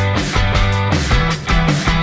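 Background rock music with guitar, a steady beat and a sustained bass line.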